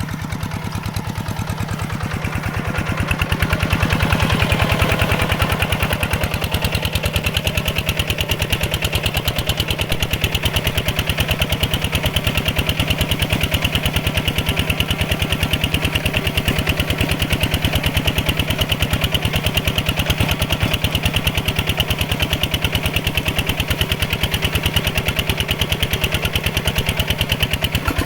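Mini tractor's single-cylinder diesel engine running steadily under load. It grows louder about four seconds in, then holds a fast, even beat.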